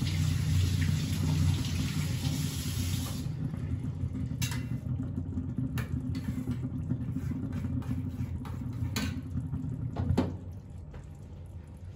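Yellow pea chole simmering in an iron kadhai on a gas stove: a few sharp pops of bursting bubbles over a steady low rumble, with a hiss during the first three seconds. The rumble drops away near the end.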